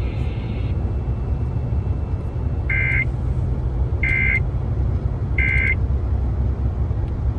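Emergency Alert System end-of-message data bursts sent over the radio: three short, shrill warbling bleeps, each about a third of a second long and about 1.3 seconds apart, marking the end of the alert. A steady low hum runs underneath.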